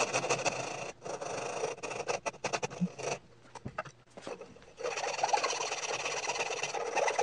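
Coping saw cutting through plywood in quick back-and-forth strokes, extending a slot. The sawing stops for about a second and a half midway, then starts again.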